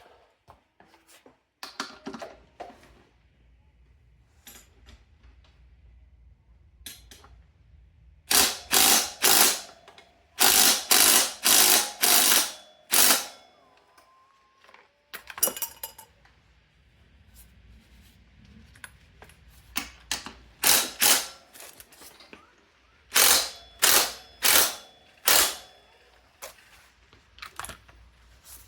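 Socket ratchet with a 17 mm socket turning the rear axle nut on a dirt bike, its pawl clicking in quick runs on each back-stroke. The clicking comes in two spells, about a third of the way in and again about three-quarters of the way through, with quieter tool handling between.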